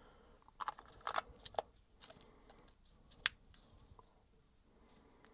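Small clicks and taps of the DJI Osmo Action 5 Pro action camera and its battery being handled, the battery compartment opened and the battery fitted, with one sharp snap about three seconds in.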